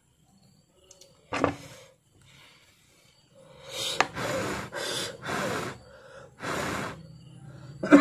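Short puffs of breath blown close to the microphone: one a little after a second in, then five in a row from about three and a half seconds, with a light click among them. This is plausibly blowing on the still-warm phone circuit board to cool it.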